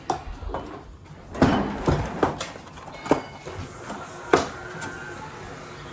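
Kitchen items being handled during baking: about six sharp knocks and clacks, the loudest about a second and a half in and again near four and a half seconds.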